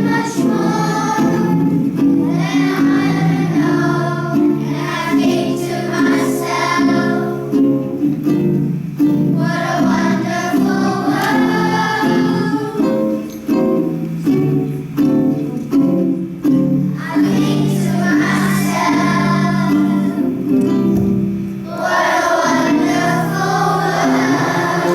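A children's choir singing a song in unison over a plucked string accompaniment.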